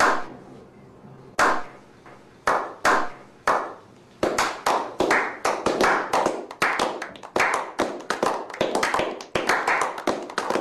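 A slow clap by a small group of people. At first single hand claps come about a second apart, a few of them. Then from about four seconds in, several people join and clap faster and closer together.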